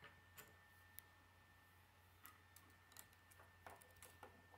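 Faint, irregular clicks and taps of K'nex plastic pieces being handled and pressed together, about nine in all, over a steady low electrical hum.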